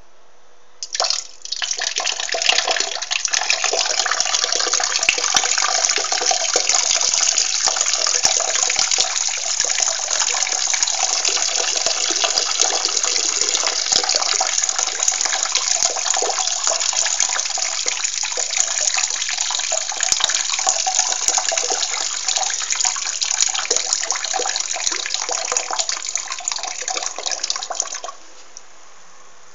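A person urinating: a steady stream splashing into water. It starts with a short spurt about a second in, runs continuously, and stops abruptly near the end.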